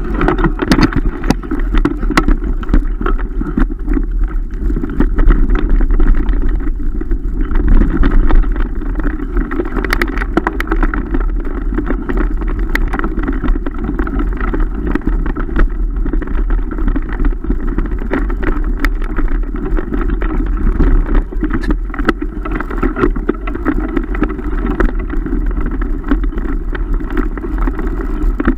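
Mountain bike riding fast over a rough dirt forest trail, heard through the rider's own camera microphone: a loud, steady rumble of wind and tyre noise with frequent small knocks and rattles from bumps in the track.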